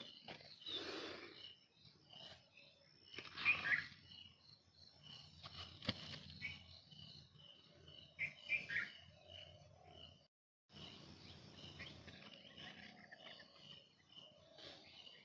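Birds chirping outdoors: a steady run of short, high chirps, two or three a second, with a few louder calls that glide downward. The sound cuts out for a moment near the middle.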